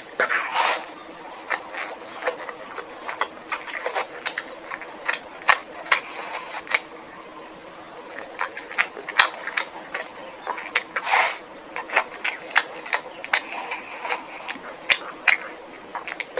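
Close-up eating sounds from a person chewing, with a steady run of irregular wet smacks and crunchy clicks.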